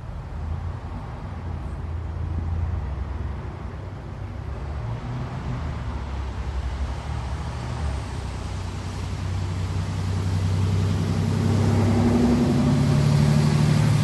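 Double-decker bus engine running with steady road and traffic noise, heard from inside the bus. About three-quarters of the way in it grows louder and a higher engine note comes in.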